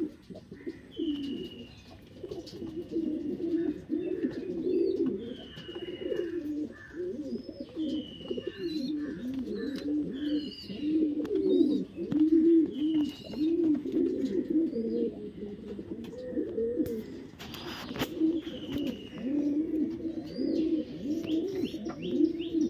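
Fantail pigeons cooing, a continuous low warbling coo. A small bird's high, falling chirp repeats every second and a half or so, and there is a brief rustle about three-quarters of the way through.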